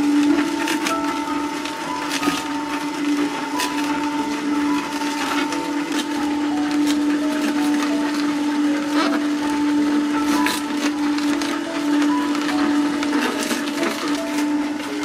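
Hurom H320N slow juicer running, its motor humming steadily while the auger crushes celery, with irregular cracking and snapping of the stalks throughout.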